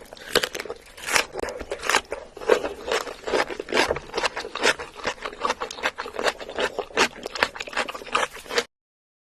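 Close-miked eating sounds: a rapid, irregular run of small wet clicks and smacks of chewing, which cuts off abruptly near the end.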